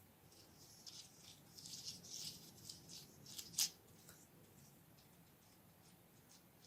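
Faint crinkling and rattling of small plastic candy and toy packaging being handled, busiest from about one to four seconds in, with one sharp click at about three and a half seconds in.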